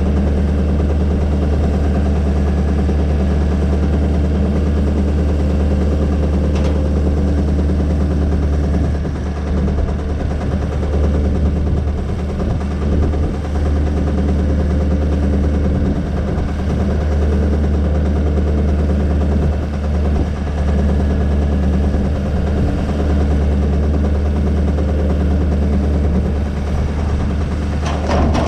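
An engine idling steadily with a rapid, even firing beat. A light click comes about six seconds in and a knock near the end.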